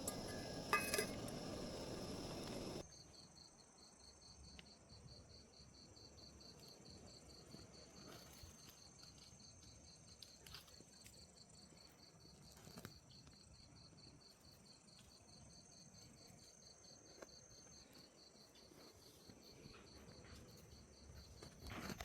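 Crickets chirping in a fast, even pulsing trill. A louder rushing noise cuts off about three seconds in, and a few faint clicks sound later on.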